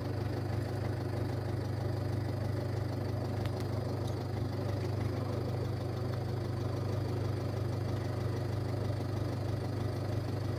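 Ford Fiesta 1.4 TDCi four-cylinder turbo-diesel idling steadily, heard from inside the cabin.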